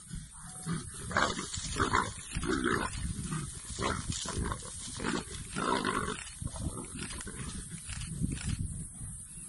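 Two male leopards fighting, snarling and growling in a run of short, harsh outbursts that cluster between about one and six seconds in.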